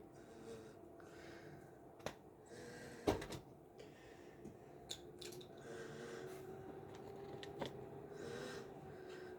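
Small objects being handled: a few sharp clicks and taps, the loudest about three seconds in, between soft rustling or brushing sounds, over a faint steady hum.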